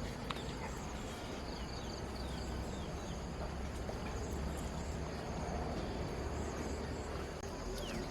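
Outdoor ambience: insects chirping steadily at a high pitch over a low, even rumble, with a few short high calls.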